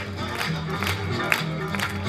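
Festive folk music with guitar and a steady beat of about two strokes a second, with faint crowd noise underneath.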